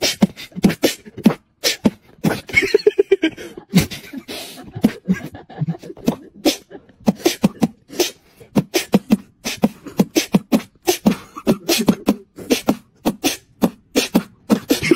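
Beatboxing: a fast, uneven run of mouth-made drum hits and clicks, with short pitched vocal notes in between.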